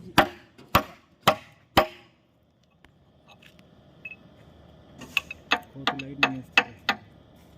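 Hammer striking the excavator bucket's steel teeth or tooth pins: four sharp blows about half a second apart, a pause, then another run of quicker blows in the second half.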